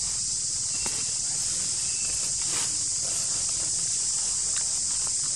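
Steady, high-pitched buzzing of an insect chorus, with a few faint clicks and a couple of brief high chirps over it.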